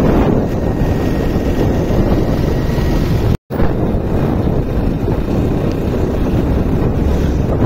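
Wind buffeting the microphone on a moving motorcycle: a loud, steady rush of air and road noise. The sound cuts out for a moment about three and a half seconds in.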